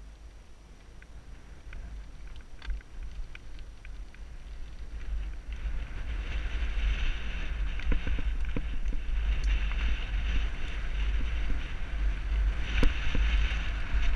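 Mountain bike rolling down a dirt and gravel trail, heard from a helmet-mounted camera. Wind buffets the microphone with a low rumble, and the tyre hiss with scattered clicks and rattles grows louder over the first half as the bike picks up speed.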